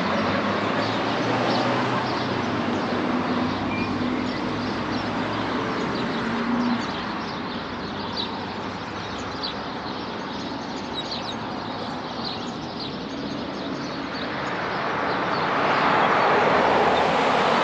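Motor vehicle noise: an engine humming steadily and traffic passing, with small birds chirping over it. A louder swell of vehicle noise comes near the end.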